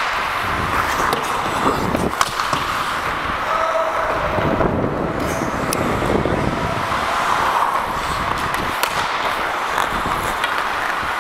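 Ice skates scraping and gliding on the rink, heard through a helmet-mounted microphone with air rushing over it, and scattered sharp knocks of sticks and pucks.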